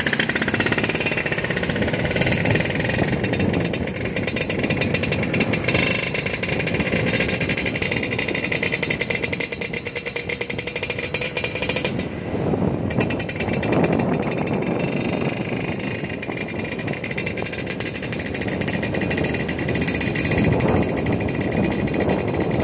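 Motorcycle engines running at road speed with a fast, rough exhaust beat. The sound eases off briefly about halfway through.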